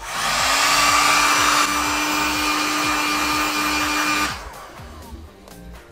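Handheld hot-air blower running with a steady hum and rushing air for about four seconds, then switched off. It is warming a vinyl camo sticker skin on a pistol slide, the finishing step that sets the wrap.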